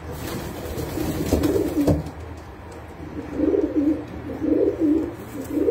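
Racing pigeons cooing in low, rolling phrases: one coo about a second in, then three more in quick succession from about three seconds in.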